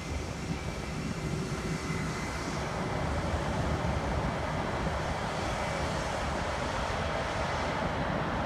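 Distant U.S. Navy Blue Angels jet fighters' engines at takeoff power: a steady rumble and hiss that grows slightly louder.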